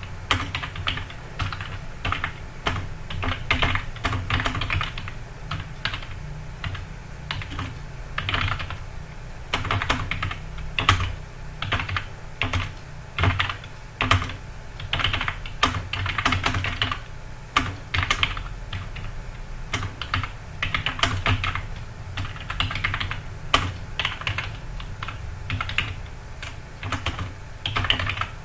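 Fast typing on a computer keyboard: a steady patter of key clicks in quick runs with short pauses between them, over a low steady hum.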